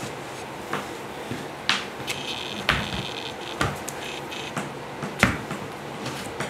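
Body-made percussion from dancers: sharp slaps, claps or stomps about once a second, the loudest a little after five seconds in, with short high squeaks between them.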